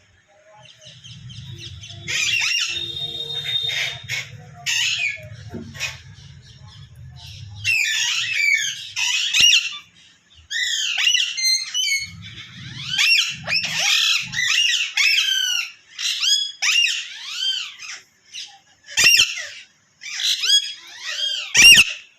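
Pet parrot calling in a rapid series of short, high, arching squawks and chatter, with a low hum underneath in places.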